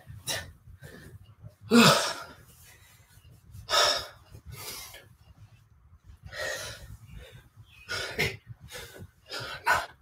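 A man breathing hard from exertion mid-workout: a string of loud, irregular, forceful exhales and gasps, loudest about two seconds in.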